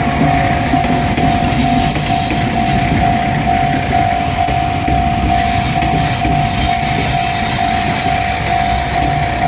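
Japanese railroad-crossing alarm ringing, a single pitch repeating about twice a second, over the running rumble of a KiHa 185 diesel railcar train.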